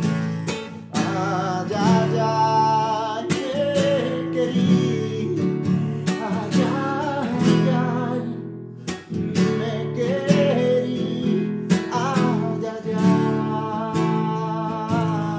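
Nylon-string classical guitar strummed in a steady rhythm, with a man singing over it.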